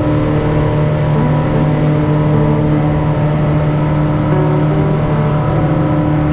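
Twin 150 hp outboard motors running steadily at cruising speed, pushing a boat fast across the water.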